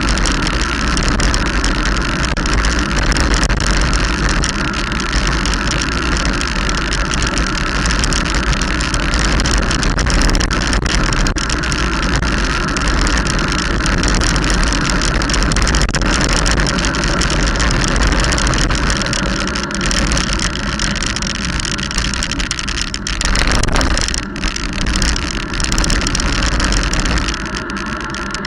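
Wind buffeting the microphone of a rider's camera while moving fast downhill: a loud, steady rushing rumble, shifting briefly about three-quarters of the way through.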